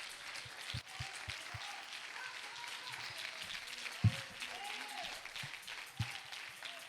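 Congregation applauding, with a few voices calling out over the clapping. A sharp low thump about four seconds in, and a smaller one near six seconds, stand out above the applause.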